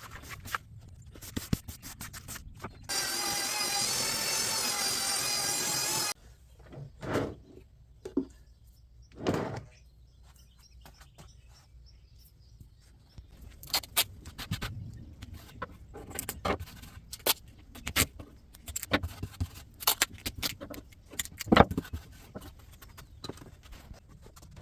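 A steady squeal with several stacked tones, starting and cutting off abruptly about three seconds in and lasting about three seconds, followed by scattered knocks and taps of tools on wood.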